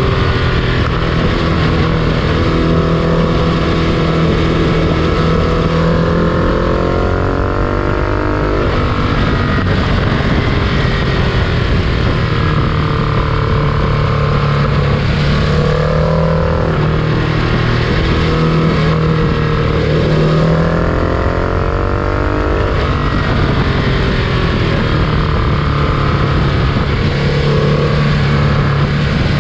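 Freight train running steadily: a loud, constant rumble with a steady low hum and several higher tones that slowly rise and fall.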